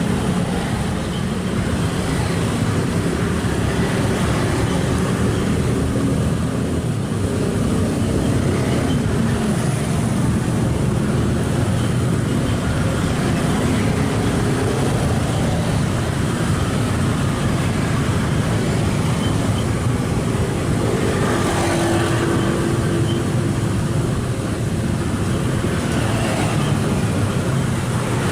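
Kobelco SK75 excavator's diesel engine running steadily under working load, a continuous low drone, with a brief higher hum joining in a little past two-thirds of the way through.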